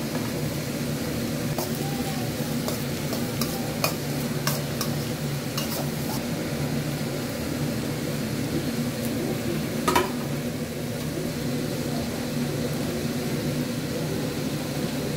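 Chopped tomatoes and onions frying in a stainless-steel kadai, sizzling steadily, with scattered light clinks and scrapes of the serving plate and utensil against the pan and one sharper clink about ten seconds in.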